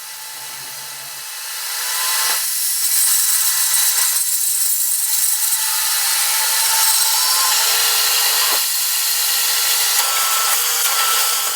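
Power tool cutting wood, trimming the glued-up top of a handmade shift knob: a steady, hissing cutting noise that swells about a second and a half in and holds.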